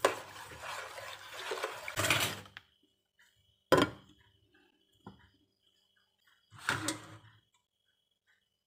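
Metal spoon stirring rice, water and coconut milk in a rice-cooker's inner pot, scraping and splashing for about two and a half seconds. Then a single sharp clack as the glass lid is set on the pot, a light knock, and another short clatter of kitchenware near the end.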